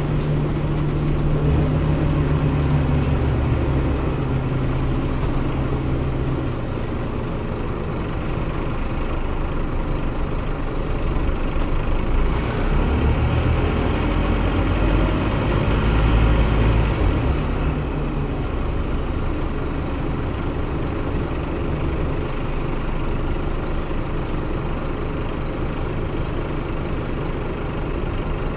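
Scania CN270UB city bus heard from inside the passenger cabin while driving: engine running with road and body noise. The low engine note shifts through the run and is loudest about midway.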